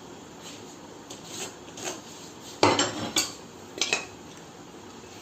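Handling of a steel try square and wood pieces on a workbench: a few light taps and clinks, then three sharper knocks past the middle.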